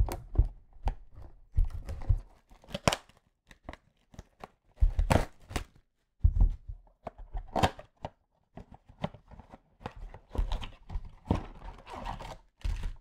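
Trading card packs and cards being handled at a table: a wrapper crinkling and tearing, with many irregular light knocks and taps as cards and boxes are set down.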